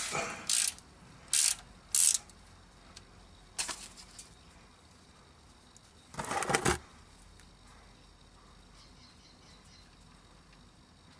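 A 13 mm wrench on the engine's sump drain plug: a few sharp metallic clicks and knocks in the first few seconds as the plug is worked loose, then a half-second scraping burst about six seconds in.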